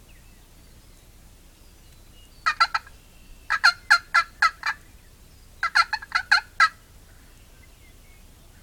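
Young male wild turkeys (jakes) gobbling: three rapid rattling gobbles, the first short, about two and a half seconds in, the next two longer, near the middle and a second or so later.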